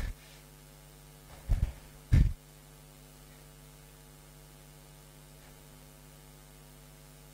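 Steady electrical mains hum on the microphone line. Two short, loud puffs of breath hit a headset microphone close together, about one and a half and two seconds in.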